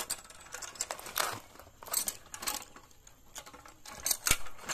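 Hand-operated ratchet cable puller (come-along winch) being handled: irregular metallic clicks and clanks from its steel frame, handle, hook and ratchet parts. The sharpest knocks come about four seconds in.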